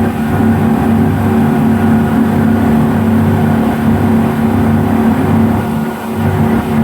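Speedboat's twin 250-horsepower engines running steadily at speed, with a brief dip in level about six seconds in.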